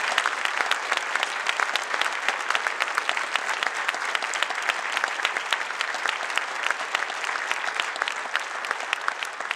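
Large audience clapping steadily, tapering off a little near the end.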